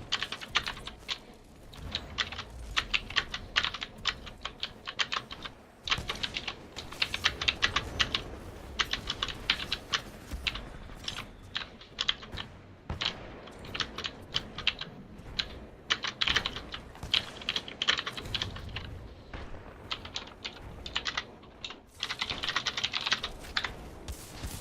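Fast typing on a mechanical keyboard with clicky Gateron Blue switches: quick runs of sharp clicks in bursts, broken by brief pauses.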